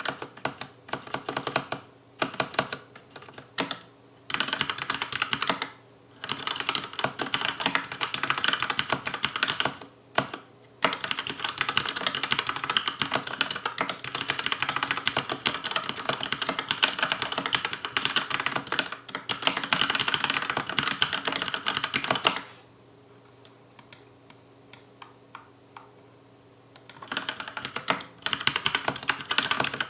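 Fast touch-typing on a Logicool K835 TKL mechanical keyboard with TTC linear red switches, a rapid clacky patter of keystrokes. It pauses briefly several times, and near the end there is a longer pause of a few seconds with only a few single key presses before the fast typing resumes.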